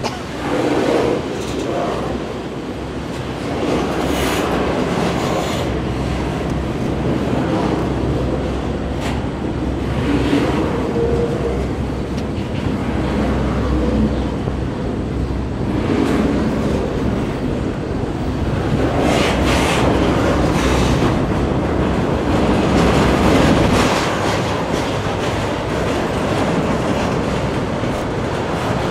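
Double-stack intermodal container train rolling steadily past, a continuous rumble of steel wheels on rail with occasional knocks from the cars.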